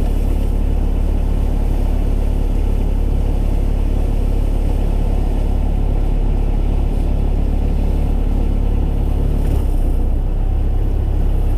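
Sherp amphibious vehicle's diesel engine running steadily, with low drivetrain rumble, heard from inside the cab.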